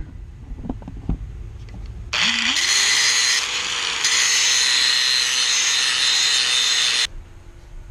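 Handheld angle grinder switched on about two seconds in, its whine rising as the motor spins up, then grinding the cutting edge of a steel lawn mower blade clamped in a vise, throwing sparks, for about five seconds before it stops abruptly.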